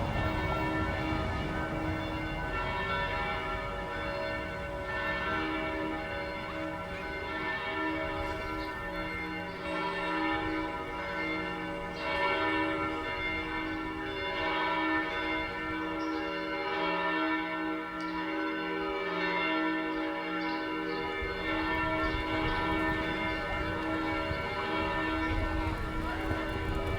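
Church bells ringing, a new strike about every second while earlier tones ring on and overlap. A low rumble sits underneath near the start and near the end.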